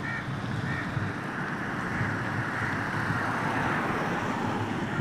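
Steady outdoor ambient noise, like wind and distant engines, swelling slightly in the middle, with a couple of short faint calls near the start.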